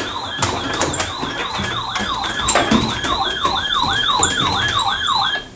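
Electronic siren yelping in quick repeated up-and-down sweeps, about three a second, with a higher wavering tone over it. It cuts off suddenly near the end.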